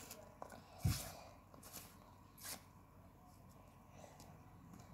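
Plastic slime tub being handled: one soft knock about a second in, then a couple of faint short rustles.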